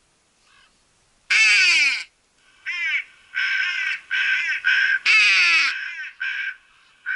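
Hooded crows cawing: a long, harsh caw falling in pitch about a second in, then a quick series of shorter caws with another long falling caw about five seconds in.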